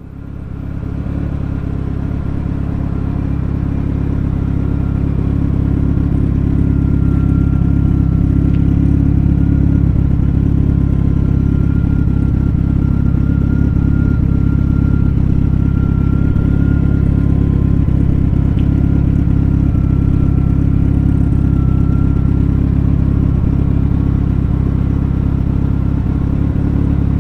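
Mitsubishi Lancer Evolution IX turbocharged four-cylinder idling steadily through a 3.5-inch stainless exhaust: Artec O2 housing, custom front pipe and cat-back with Reaper resonator and muffler. The sound fades up over the first second.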